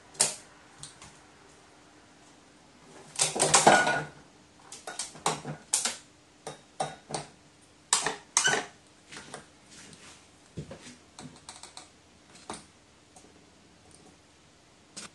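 A crow pecking at an apple: irregular sharp taps and clicks of its beak and claws against the apple, a metal shelf top and a stainless steel bowl, with a louder burst of clattering about three seconds in.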